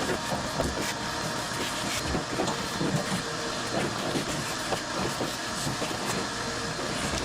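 Steady rushing, hissing machine noise with small rattles and clicks throughout, switched on just before and cut off just after, typical of an air-moving cleaning tool clearing lint.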